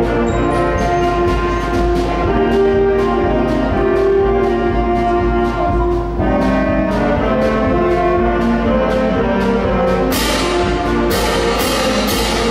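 School band playing, brass-led, over a steady drum beat. Repeated cymbal crashes come in near the end.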